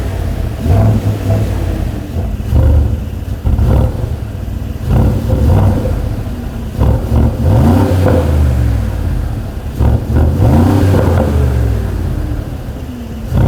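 Mercedes-AMG G63's twin-turbo V8 revved again and again through an Akrapovič exhaust. There are short blips about every two seconds, each rising and then falling back toward idle.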